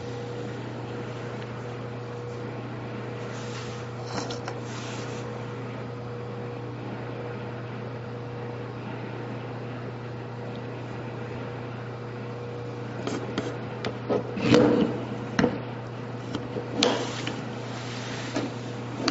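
A steady low electrical hum, with no other sound for the first two-thirds. Then a run of clicks, knocks and rubbing as hands pick up two compact pistols and handle them against the table and against each other.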